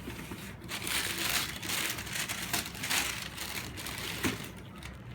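Shoe packaging crinkling and rustling as it is handled and unwrapped, rising and falling several times.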